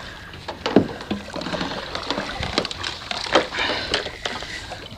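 Scattered knocks and rubbing of hands handling a GoPro action camera's waterproof housing while its lens is wiped.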